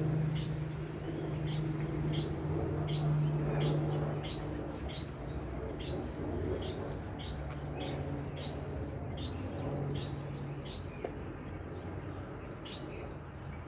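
A songbird calling over and over, a short high chirp repeated about once or twice a second, over a low steady hum.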